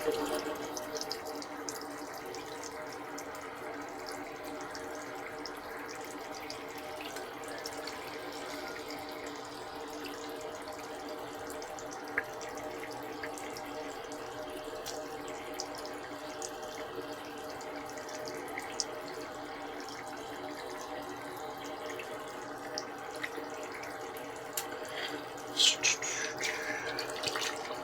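Bathroom tap running steadily into a sink, with a few small clicks and knocks over it.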